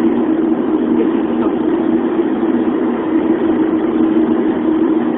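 Steady driving noise heard inside a car's cabin: a constant engine drone under road and tyre noise.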